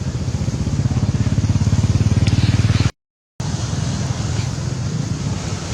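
An engine running with a fast, even low pulse, getting louder over the first three seconds. It cuts off abruptly in a short silent gap about three seconds in, then carries on steadily.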